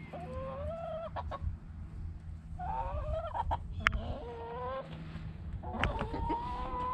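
Free-ranging hens clucking, with about four drawn-out, pitched calls spread through the few seconds.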